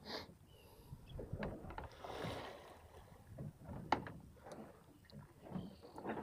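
Sea water slapping and splashing against the side of a small boat's hull in irregular swells, with one sharp knock about four seconds in.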